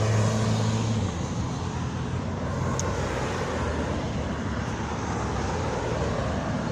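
A motor vehicle passes with a low engine hum that fades after the first second, over steady traffic noise from the road.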